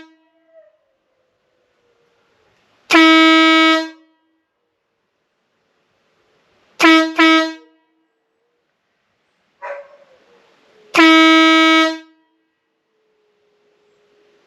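Motorcycle air horn blown in loud blasts: one long blast, then two short ones, then another long blast. Between blasts a dog howls softly.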